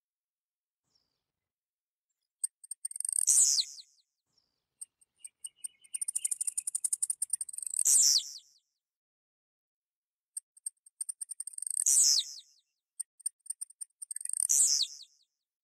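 Blue-black grassquit (tiziu) singing four short, high, buzzy songs about every four seconds. Each song ends in a loud falling note, and the second opens with a long run of rapid ticks.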